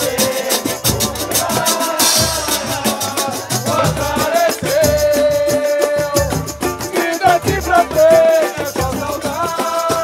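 Samba played by a percussion group with hand drums and tambourine at a fast, steady beat, with a sung melody on top that holds one long note about halfway through.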